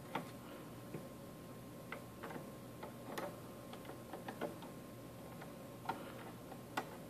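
Faint, irregular small clicks and ticks of a screwdriver turning a small machine screw into the metal end plate of an access-point housing, driven lightly by finger pressure alone.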